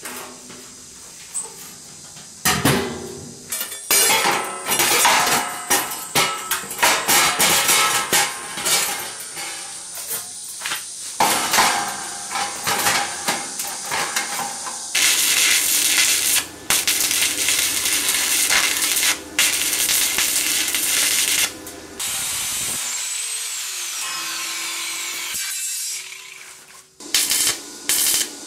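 Steel metalwork on the parts of a homemade rice-threshing drum: irregular clanking and knocking of steel for the first half, then several seconds of steady harsh machine noise. Electric arc welding crackles near the end.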